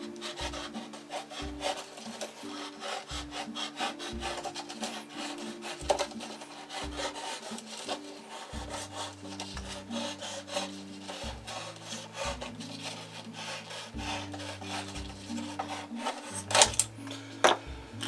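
Sharp knife sawing through the thin wall of a red plastic cup to cut its bottom out, a quick run of rasping strokes, over soft background music.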